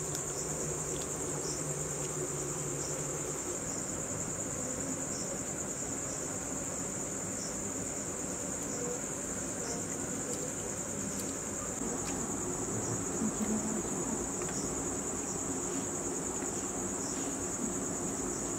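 Crickets chirping in one steady, high-pitched trill that never breaks.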